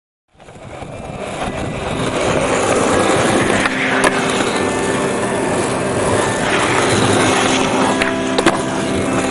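Skateboard wheels rolling on concrete under a music track with sustained notes, fading in over the first two seconds. Sharp clacks of the board come about four seconds in and twice close together near the end, as it is popped into a flip trick and lands.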